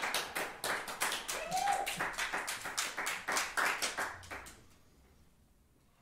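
A small audience applauding with scattered hand claps, with a short cheer about a second and a half in; the clapping thins out and stops near the end.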